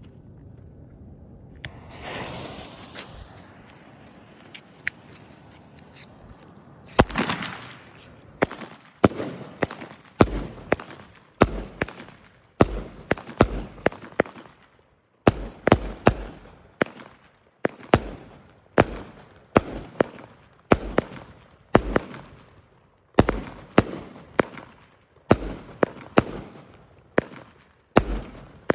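A 25-shot consumer firework cake (Minions Hit Back). It hisses for a few seconds after lighting, then fires a long string of shots, about one or two a second, each a sharp bang with a short fading tail.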